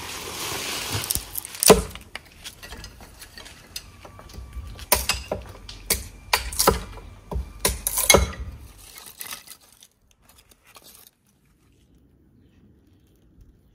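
Irregular clinks and knocks of hard items, metal or glass, being handled, with a low rumble under them, stopping about nine seconds in.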